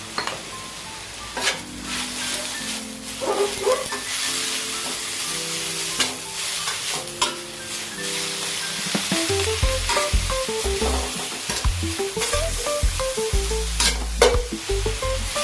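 Cassava leaves sizzling as they are stir-fried in a pan, with the spatula scraping and clicking against the pan every second or two. Background music plays underneath, a heavy bass beat coming in about two-thirds of the way through.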